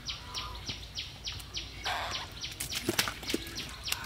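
Shallow muddy water splashing as hands grab at fish, with a rushing splash about two seconds in and a few sharp knocks a second later. Behind it, a high chirp repeats about four times a second.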